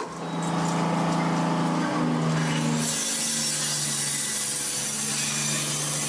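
Excavator's diesel engine running steadily, its pitch dropping slightly about three seconds in as a hiss comes up over it.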